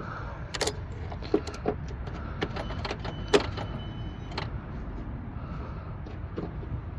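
A few sharp metallic clicks and knocks of hand tools being handled, the loudest about three and a half seconds in, over a steady low rumble.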